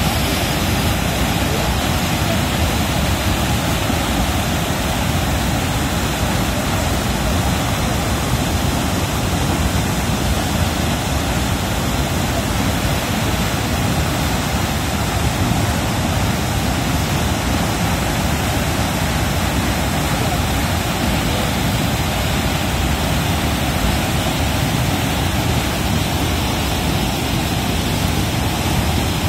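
Indrayani river in flood after heavy rain, its water rushing and churning in a loud, steady roar.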